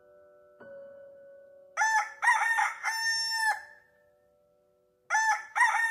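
Rooster crowing twice: a cock-a-doodle-doo of a few short notes ending in a long held call about two seconds in, and a second crow beginning near the end.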